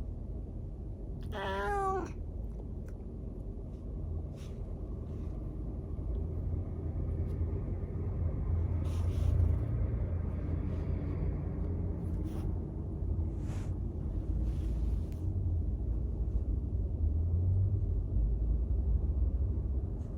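A domestic cat meows once, briefly, about a second in, with the pitch bending as it calls. A steady low rumble runs underneath, with a few soft clicks.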